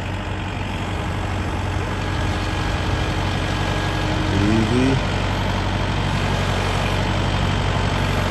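Kubota diesel tractor engine running steadily as its front-end loader works a round hay bale down into a pickup bed. A brief rising whine comes about halfway through.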